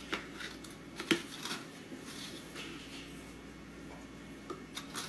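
Plastic scoop digging into a tub of whey protein powder and tipping it into a stainless steel mixing bowl: soft scraping and rustling with a few light taps, the sharpest about a second in.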